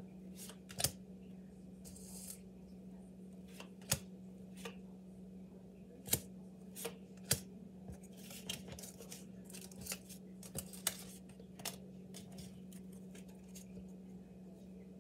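A deck of playing cards being handled and shuffled: irregular sharp snaps and clicks of the cards, with a few brief papery riffles, over a steady low hum.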